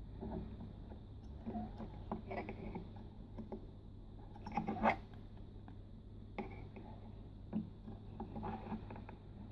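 Hard plastic parts of a Mech Fans Toys MF-19 transforming robot figure clicking and scraping as its arms, wings and gun are moved at the joints. The clicks are scattered and irregular, with the loudest cluster about halfway through, over a steady low hum.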